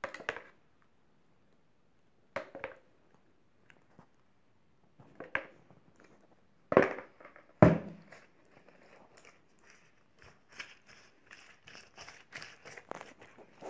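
Thin yufka pastry sheets crinkling and crackling as a silicone brush dabs sauce over them, in scattered bursts, with the two loudest about seven seconds in and a denser run of small crackles in the last few seconds.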